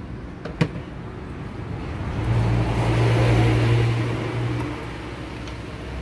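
A sharp click, then a motor vehicle's engine passing nearby: a steady low hum swells for about two and a half seconds and fades away.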